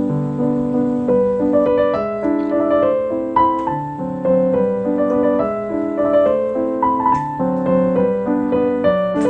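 Background piano music: an even run of melody notes over changing chords.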